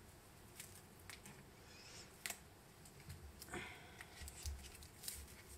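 Faint handling sounds of foam and tape being wrapped around a wooden pencil: light rustles and small clicks, one sharper click about two seconds in, and a few soft low bumps against the workbench a little after three seconds.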